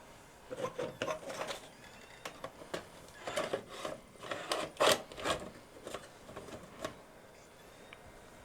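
VHS tape mechanism of a Toshiba RDXV50KF DVD/VCR combo clicking and clunking irregularly as it works the tape. The clicks are loudest about five seconds in.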